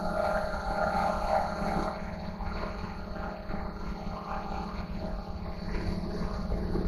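Redlef RD1 Pro quadcopter drone's motors and propellers running in flight: a steady whirring hum of several tones over a low rumble.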